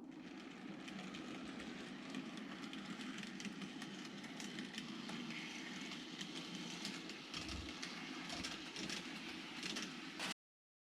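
TOMIX N-gauge KiHa 26 model diesel railcars running on model track: a steady motor hum with a rapid, irregular patter of wheel clicks over the rail joints. The sound cuts off abruptly near the end.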